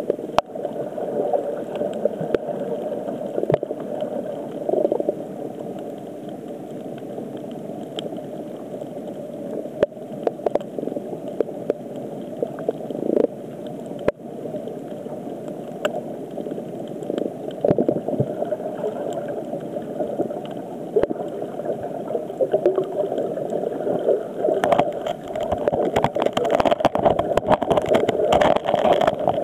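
Underwater ambience picked up by a diver's camera: a steady low rumble with scattered clicks and crackles. From about 25 seconds in it turns louder and busier, with dense crackling and a rush of noise.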